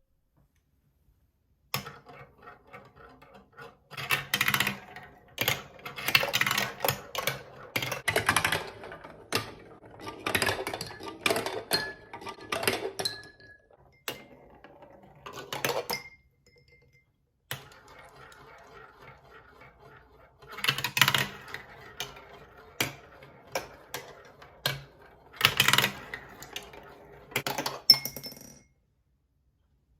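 Marbles clicking and rattling down a plastic marble run track. The clatter comes in bursts of quick knocks, separated by short pauses.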